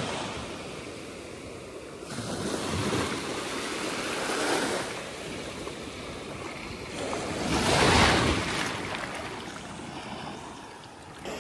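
Ocean surf washing up the beach: a steady rush of water that swells twice, the louder wave about eight seconds in.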